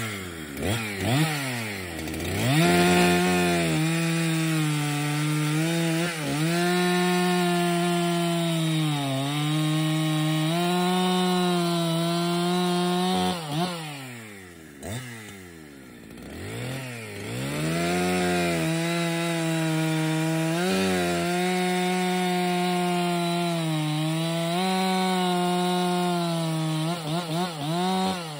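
Husqvarna 365 Special two-stroke chainsaw revving up and cutting through a log at a steady high pitch that sags slightly under load. It drops back to idle about halfway once a round is cut off, then revs up again for a second cut, ending in a few quick throttle blips.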